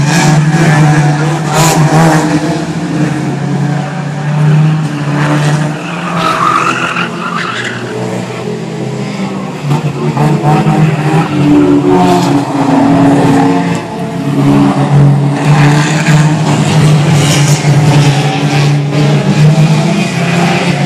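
Several banger race cars' engines running and revving as they race around the track, the pitch rising and falling, with tyres skidding on the tarmac partway through.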